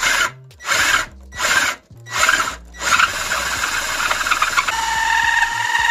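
Cordless drill in second speed turning a 68 mm hole saw into a subwoofer box: four short bursts of cutting, then continuous cutting from about halfway, with a steady squeal setting in near the end. The friction heats the cut enough to make smoke.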